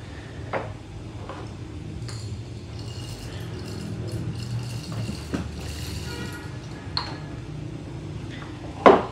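Hand-cranked manual burr coffee grinder being turned, whole coffee beans crunching and grinding in a steady gritty rattle. A single sharp knock comes near the end.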